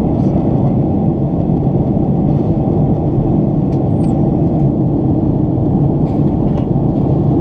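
Steady cabin noise inside a Boeing 767 airliner in flight: engine and airflow noise heard from a window seat, an even low rumble that does not change.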